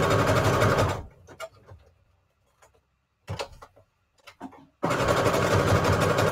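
Electric domestic sewing machine stitching through paper scraps: it runs for about a second, stops, and starts again a little before five seconds in. In the pause between there are soft clicks and rustles of paper being handled.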